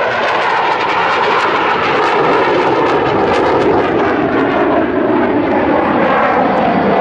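KAI T-50 Golden Eagle's single turbofan engine at display power as the jet flies past and pulls up, a loud, steady jet noise with a slowly shifting, phasing tone.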